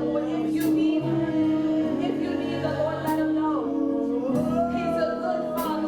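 Gospel worship music: sung vocals over sustained instrumental chords, with a cymbal-like stroke every couple of seconds.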